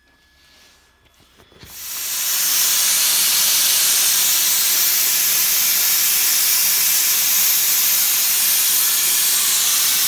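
Plasma cutter cutting steel: a loud, steady hiss of the torch's arc and air jet, coming up quickly about two seconds in after near quiet and holding evenly.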